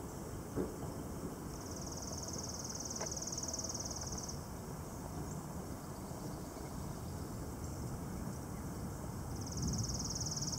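An insect's rapid high-pitched trill, twice: one lasting about three seconds, starting a second or two in, and a shorter one starting near the end, over steady outdoor background noise.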